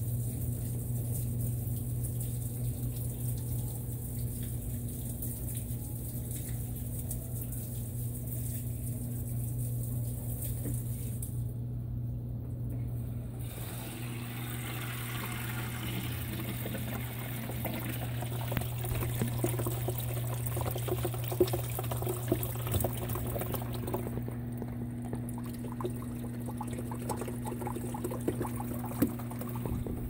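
Top-load washing machine draining: the drain pump hums steadily while waste water pours out, the pouring getting louder and splashier from about halfway through.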